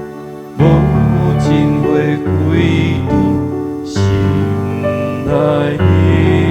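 Piano playing a slow, gentle passage: four chords struck about every second and a half to two seconds, each left to ring into the next.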